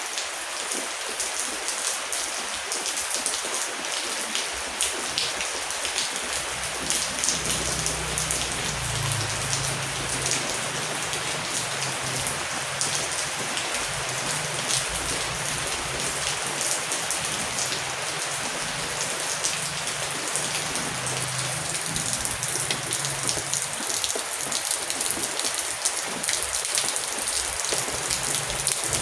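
Heavy rain falling steadily: a dense hiss full of individual drop hits. From about six seconds in, a low, uneven rumble runs underneath.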